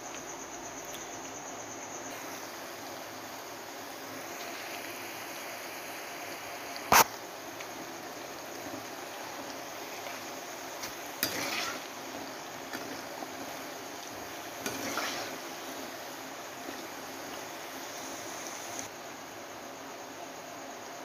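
Hot oil sizzling steadily as wheat-flour snacks deep-fry in an aluminium kadai. A single sharp knock comes about seven seconds in, and a few lighter clatters follow around eleven and fifteen seconds.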